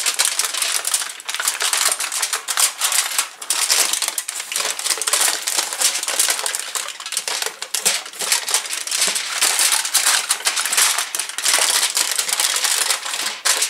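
Aluminium foil crinkling and crackling continuously as hands lift and fold it to roll up a sheet of ground beef.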